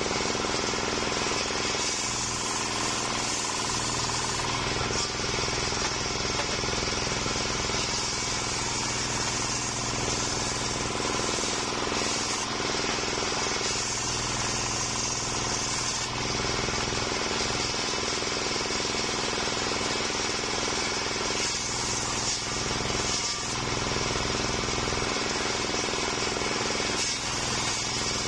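Homemade circular sawmill running steadily, its blade ripping lengthwise through a waru (sea hibiscus) log.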